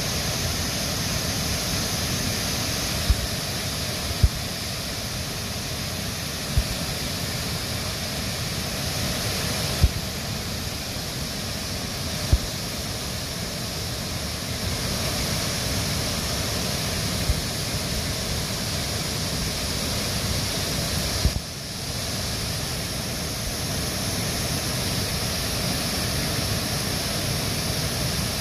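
Steady rushing noise of heavy floodwater, with a handful of short, low thumps scattered through it.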